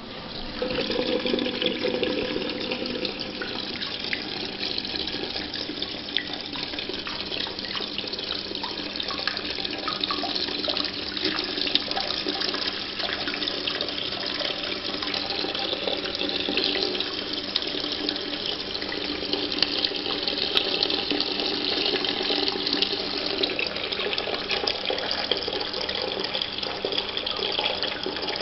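Toilet cistern filling through its float-operated ball valve (a ballcock with a red float), water rushing and hissing in steadily. The water starts about a second in.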